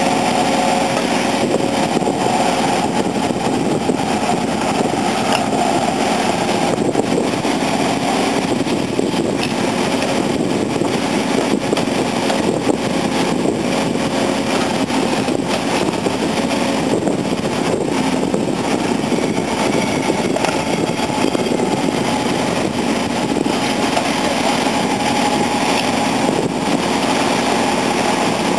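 Diesel engines of heavy earthmoving machines running steadily: a JCB 3CX backhoe loader pulling a bogged-down Komatsu D65EX bulldozer free.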